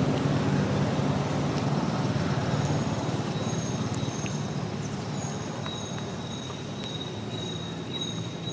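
A vehicle engine running and slowly fading away, with thin, high, steady tones coming and going above it.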